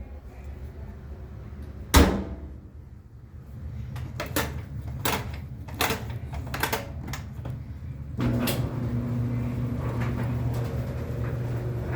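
A clothes dryer door bangs shut about two seconds in, followed by a series of sharp clicks. About eight seconds in, the GE dryer starts and runs with a steady hum.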